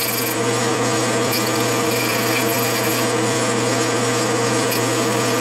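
Metal lathe running steadily while the tool turns down a Delrin bar held in the three-jaw chuck. A steady machine hum sits over a constant hiss from the cut.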